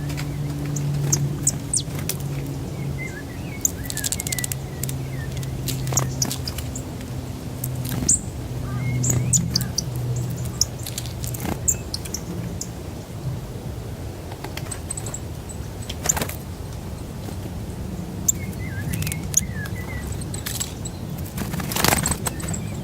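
Small birds at a winter bird feeder chirping in short, high calls, with scattered sharp clicks and taps. A steady low drone runs under them and fades out about halfway, and a louder noisy burst comes near the end.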